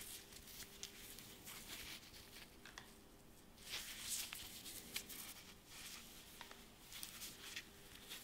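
Faint crinkling and rustling of a thin plastic sleeve as a GU10 LED bulb is pulled out of it and turned in gloved hands. The handling is busiest about four seconds in.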